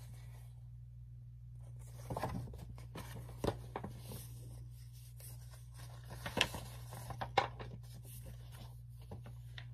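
Paperback storybook pages being handled and turned: rustling paper and a few light clicks scattered over several seconds, over a steady low hum.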